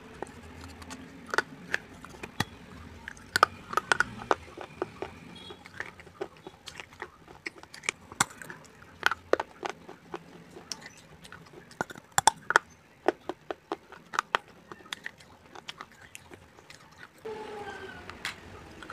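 Baked clay being bitten and chewed: pieces of a terracotta gullak (clay piggy bank) breaking between the teeth in an irregular run of sharp cracks and crunches.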